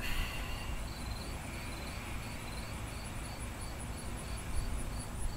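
An insect, cricket-like, chirping in a steady, even rhythm of short high chirps, over a low background rumble.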